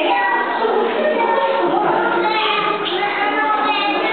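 A group of young children singing together, many voices at once.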